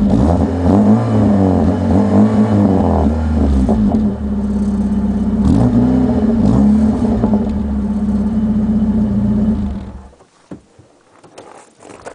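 Peugeot 106 engine and exhaust revved in several blips, each rising and dropping back, then holding a steady idle. The engine cuts off about ten seconds in, leaving faint clicks and rustling.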